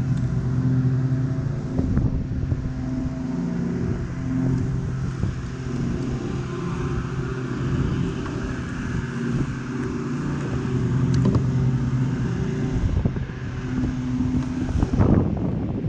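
A motor engine runs steadily with a low, slightly wavering hum, with a few light knocks in between.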